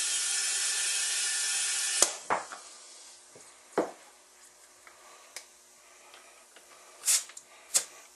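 Compressed air hissing through an air chuck into a garden tractor tire, cutting off abruptly about two seconds in. A few scattered sharp clicks and knocks follow.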